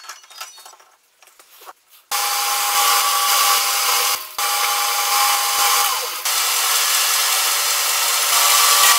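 Metal lathe cutting a steel workpiece, boring out its centre. A few faint clicks come first, then about two seconds in the cut starts suddenly as a loud, steady hissing scrape with a ringing tone through it, breaking off briefly about four seconds in.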